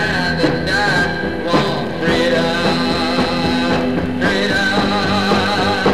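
Rock music with a sung vocal line.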